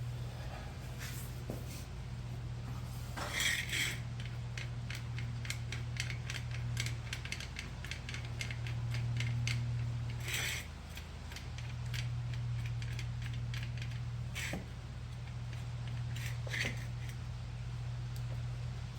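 Metal clicks and clatter of a car jack being handled and set up, with a run of quick ticks in the middle, over a steady low hum.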